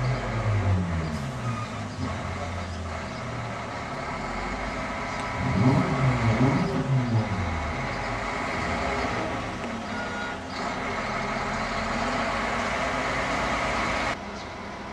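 Mobile crane truck's diesel engine running as the truck reverses slowly, revving up and settling back twice, around the start and again about six seconds in. The sound drops abruptly to a quieter level near the end.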